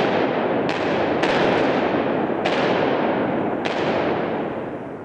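Five handgun shots fired at an indoor shooting range, unevenly spaced. Each shot rings on in a long echo, and the echo dies away after the last one.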